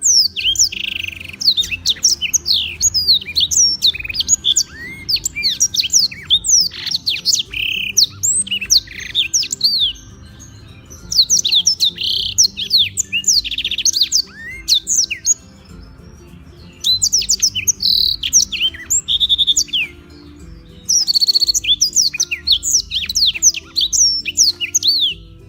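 Black-throated canary (blackthroat) singing vigorously: rapid, high, fast-sweeping notes and trills in four long bursts with short pauses between them.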